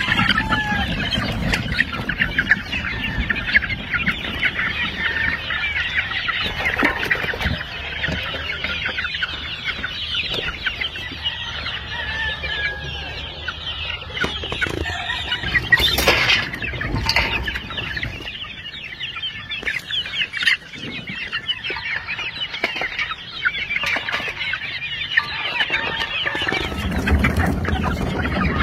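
A flock of young gamefowl chicks calling continuously, many short high peeps overlapping, with clucks mixed in.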